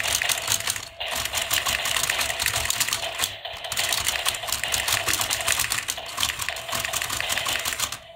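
Toy boxing robots punching as their buttons are pressed: a dense, fast clatter of clicking plastic arms and mechanism, breaking off briefly about a second in and stopping just before the end.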